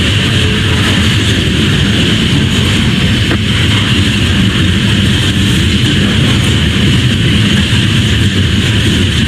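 Loaded coal hopper cars of a freight train rolling past, a steady loud rumble of steel wheels on the rails.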